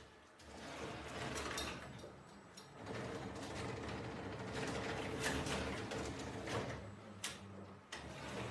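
ATM mechanism running, a continuous mechanical whirring and rattling with a low buzz and scattered sharp clicks, the sharpest a little past seven seconds in.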